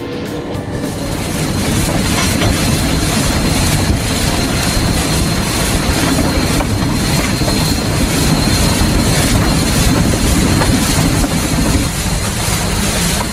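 Full-size steam train running, heard from an open car: a steady rumble and clatter of the cars on the track. From about a second in, a thin steady high whine runs over it, and the low rumble eases a little near the end.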